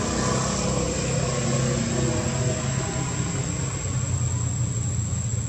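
Steady low rumble of a running engine, even and unbroken, with a thin high steady tone above it.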